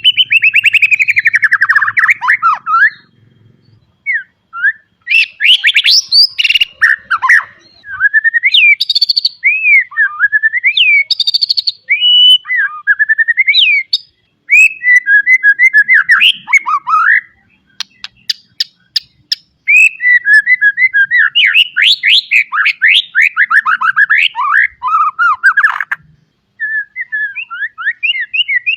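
White-rumped shama (murai batu) singing loudly: a varied run of whistled phrases, fast trills and chatter packed with mimicked calls, broken by short pauses, with a quick burst of sharp ticks about two-thirds through.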